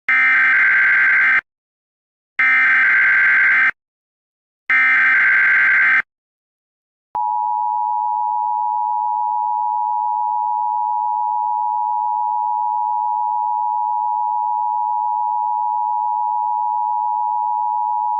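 Emergency Alert System broadcast tones: three bursts of digital SAME header data, each about a second and a half long. About seven seconds in, the steady two-tone EAS attention signal starts and holds, announcing an emergency alert message.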